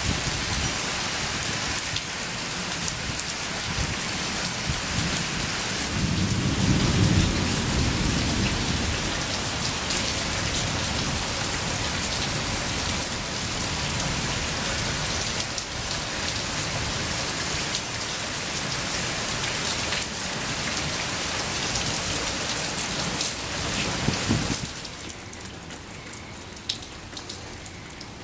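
Rain falling steadily in a thunderstorm, with a low rumble of thunder about six seconds in. The rain sound drops off sharply near the end.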